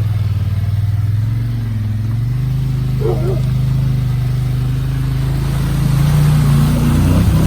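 Engine of an off-road machine running under load as it pushes through fast floodwater; its pitch dips about two seconds in and climbs again near the end.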